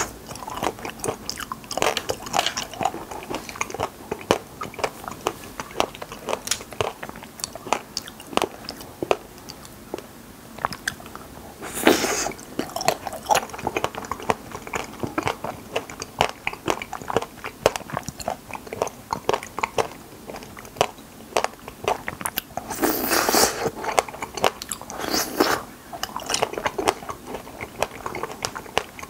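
Close-miked eating of wild raspberries: a dense run of small mouth clicks from chewing, with two louder, noisier stretches, one near the middle and one about two-thirds of the way through.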